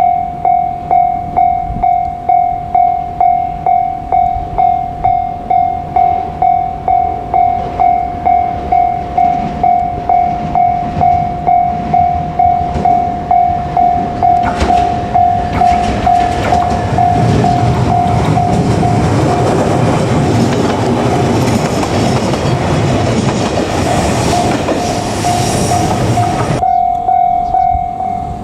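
Level crossing alarm ringing, a repeated electronic bell at about one and a half strikes a second. About halfway through, a JR Kyushu 817 series electric train runs over the crossing, and its running noise builds up to drown the bell. The train noise stops suddenly near the end, leaving the bell ringing on.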